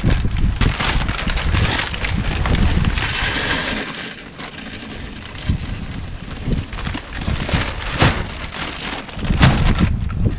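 Alder wood pellets poured from a plastic bag into a perforated metal maze smoker tray: a dense rattling patter for the first few seconds, then thinning to scattered clicks with a few sharper ones near the end.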